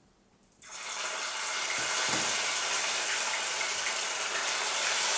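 Near silence, then about half a second in a steady sizzle starts suddenly: pieces of stock-boiled chicken frying in hot oil in a pot.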